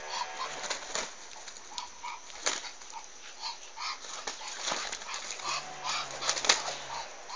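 Short animal calls repeating about every half second, with a few sharp clicks or flaps in between.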